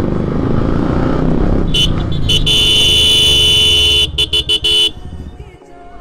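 Motorcycle engine and wind noise while riding, then a vehicle horn sounding loudly: held for about two seconds, then a few quick toots.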